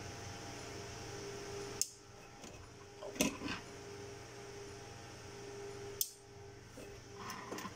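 A few sharp clicks and taps from handling wire and small tools at a workbench, over a steady fan-like electrical hum. The clicks come about two seconds in, again a second later, and twice near the end.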